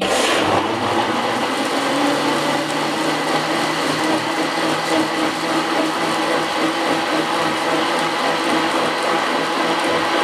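Moulinex countertop blender switched on and running at a steady speed, its blades chopping peach chunks with water and sugar into juice.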